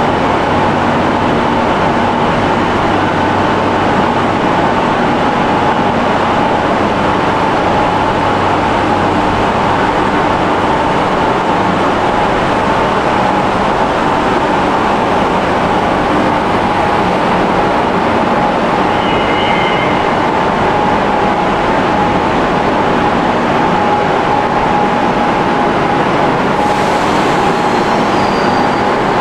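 Madrid Metro train standing at the platform, its equipment running with a loud, steady hum and a constant whine. A short high beep sounds about two-thirds of the way through, and a hiss starts near the end.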